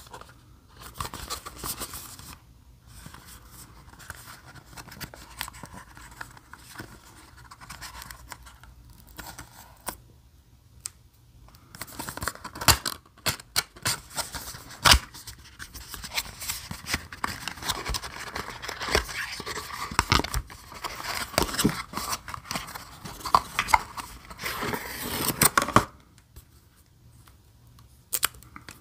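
Small cardboard product box being opened and handled: flaps and an inner sleeve scraping and sliding, paper tearing and rustling, with many small clicks and knocks. The handling is busiest in the second half and stops shortly before the end.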